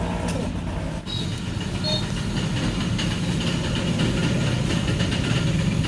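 Diesel engine running steadily with a dense, fast clatter; the sound dips briefly about a second in.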